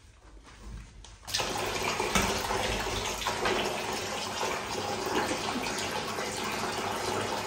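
Bathtub tap running, a stream of water pouring into the tub with a steady rush; it starts abruptly a little over a second in.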